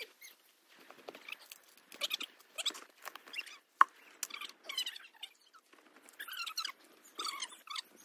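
Scraping and crunching of dry dirt and gravel being dug out of a footing hole by hand, in short irregular strokes, with one sharp click a little before four seconds in.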